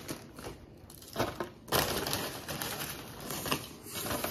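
Plastic chip bag crinkling in irregular bursts as a hand rummages inside it and pulls out chips.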